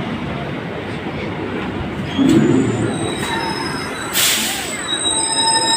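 Train running on rails with a steady rumble. About three seconds in, a thin, high wheel squeal sets in, and there is a short hiss just after four seconds.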